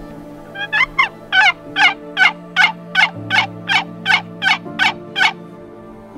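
Hand-held turkey call worked in a run of about a dozen evenly spaced yelps, about two and a half a second, imitating a wild turkey.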